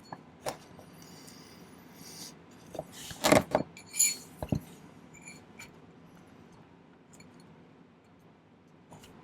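Small metal jewellery tools and a sterling silver ring clinking and tapping as they are handled: scattered light clicks, with the loudest cluster of ringing clinks about three to four and a half seconds in.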